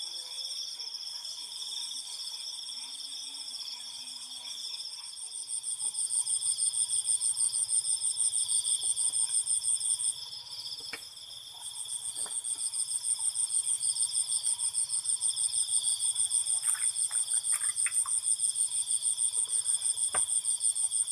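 Night insects calling in several overlapping high-pitched chirring trills. About five seconds in, a loud, fast-pulsing trill starts up, breaks off for a couple of seconds around the middle, then carries on. A few faint clicks sound along the way.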